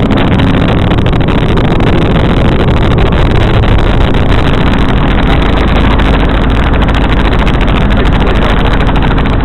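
Helicopter in flight, heard from on board: a loud, steady drone of rotor and engine.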